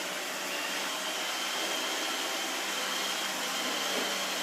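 Roomba robot vacuum running: a steady motor hum with a faint high whine.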